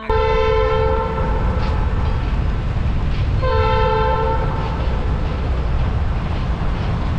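Wind and road noise from a car driving, with a horn sounding twice: a blast of about a second and a half at the start and a shorter one about three and a half seconds in.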